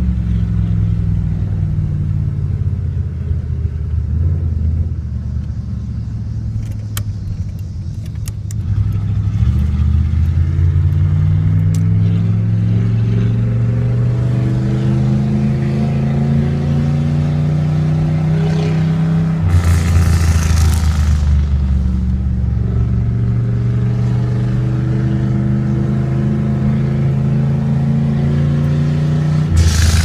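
1994 Chevrolet K1500 pickup's engine, heard from inside the cab, revved while standing still. The revs climb slowly for about ten seconds and then fall back abruptly with a short burst of noise, and this happens twice. A few sharp pops come at low revs early on, exhaust popping that the owner calls backfiring.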